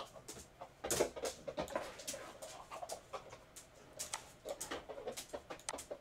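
Irregular clicks and ticks from a computer mouse being clicked and scrolled to zoom a map.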